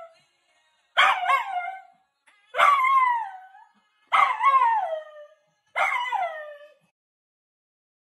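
A dog howling in four drawn-out calls about a second and a half apart, each rising briefly and then sliding down in pitch.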